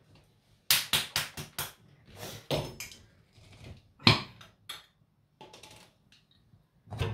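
A quick run of clicks, then scattered knocks with a louder one about four seconds in: a glass jar of chickpeas and other kitchen things being handled, picked up and set down on the counter.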